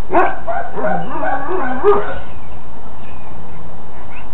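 A dog whining and yipping: a string of short cries that rise and fall in pitch over the first two seconds, then fainter.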